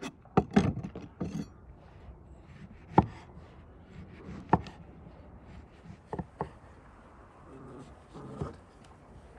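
Cleaver slicing a lemon into rounds, the blade knocking sharply on a wooden cutting board: about eight separate knocks at uneven intervals, the loudest about three seconds in.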